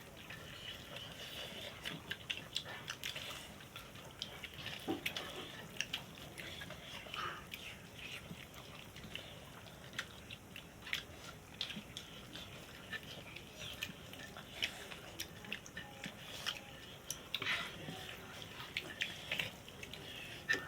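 Quiet eating sounds: scattered small clicks and smacks of biting and chewing food.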